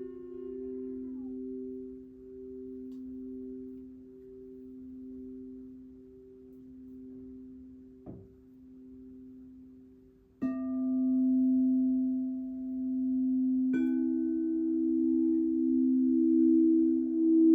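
Singing bowls ringing: two long tones slowly fade with a pulsing wobble, then a bowl is struck about ten seconds in and a second, higher-pitched bowl a few seconds later, both ringing on.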